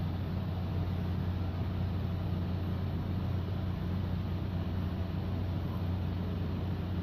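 A steady, unchanging low machine hum.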